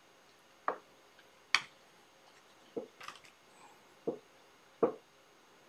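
About six short, sharp clicks and taps at irregular intervals, from hands handling a blue hackle feather and small tools at a fly-tying bench.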